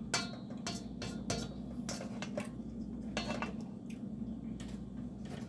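Metal spoon scraping and clinking against a stainless steel mixing bowl as roasted vegetables are stirred and tossed: a string of irregular short scrapes and clicks over a steady low hum.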